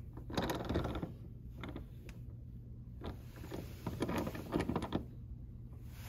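Clicks and scrapes of a pneumatic crimp tool being turned and tilted on a metal swivel bench mount, in several short bursts of handling.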